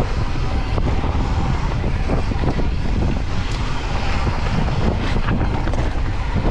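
Wind buffeting the microphone over the clattering and rattling of a Santa Cruz Bronson C mountain bike rolling fast down rough trail.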